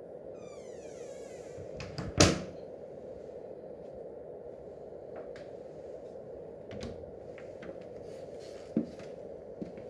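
Wooden cupboard door creaking on its hinges, then shutting with one loud thud about two seconds in, followed by a few light clicks and knocks.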